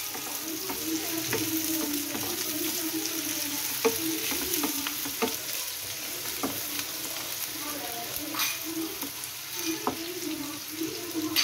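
Chopped onion, green chilli and capsicum sizzling in hot oil in a frying pan as they are sautéed, stirred with a wooden spatula. Scattered clicks and scrapes of the spatula on the pan, the sharpest about four seconds in and near the end.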